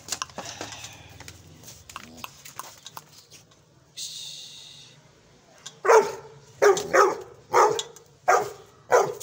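A young Gull Terr dog barking: about six loud, sharp barks in quick succession, starting about two thirds of the way through.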